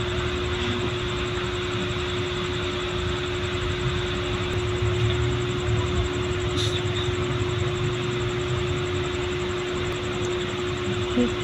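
Steady machine hum: an unchanging low drone with one constant tone and an even hiss over it.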